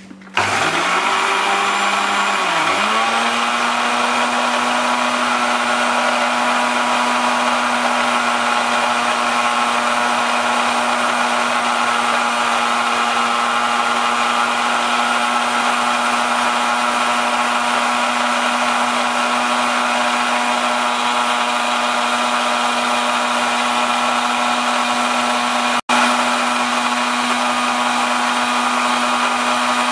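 Countertop juice blender switched on about half a second in, its motor pitch wavering for a couple of seconds before settling into a steady run at high speed, blending egg yolks, vinegar and seasoning into a mayonnaise base. The sound breaks off for a split second near the end.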